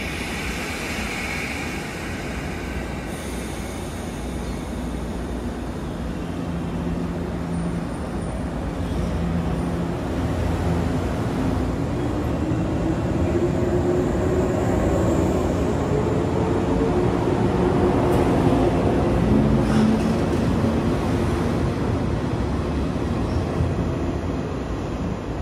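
JR 117 series electric multiple unit pulling out and accelerating past, with the rumble of wheels on the rails. Partway through, the whine of its resistor-controlled DC traction motors climbs in pitch as it gathers speed.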